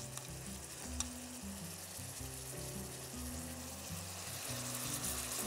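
Thin beef strips sizzling in a hot nonstick wok while they are stirred with a spatula, with one sharp tap about a second in. Soft background music with low notes plays underneath.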